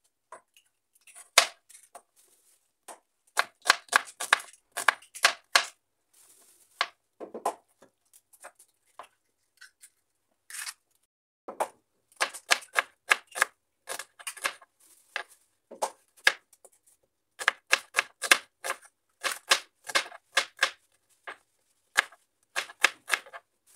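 Kitchen knife chopping onion on a cutting board: runs of quick, sharp strokes, about four a second, with pauses between the runs.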